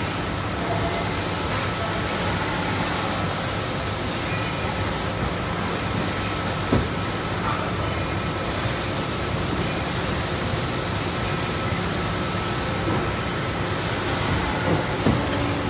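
Steady factory machinery noise from a shock absorber conveyor line, with a faint constant whine and a few metal clanks: one about seven seconds in and a couple near the end.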